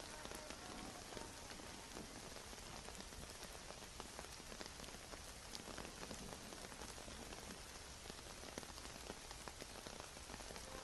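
Steady rain: an even hiss of falling rain with many small, scattered drop ticks.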